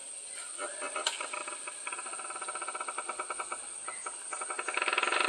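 Forest ambience: a steady high insect drone, with a rapid, even pulsing trill of about eight pulses a second that starts about half a second in and grows louder near the end.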